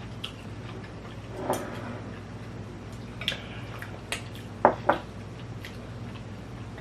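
Quiet eating sounds from a bowl of instant ramen noodles: a few soft wet mouth noises and light clicks, with two sharp taps close together a little under five seconds in, over a steady low hum.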